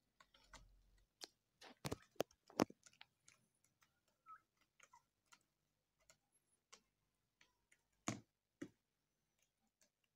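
Turkeys pecking and tearing at a crate of sprouted wheat grass: irregular sharp clicks and taps of their beaks, loudest about two to three seconds in and again about eight seconds in.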